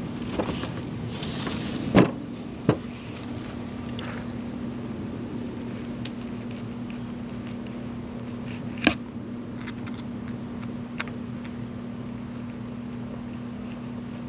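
A steady low mechanical hum with a few sharp knocks: the loudest about two seconds in, another just after, and one near nine seconds in.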